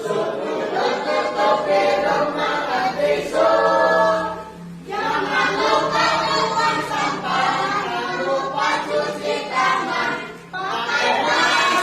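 A group of voices singing together in long phrases, with a brief break about five seconds in and another near the end.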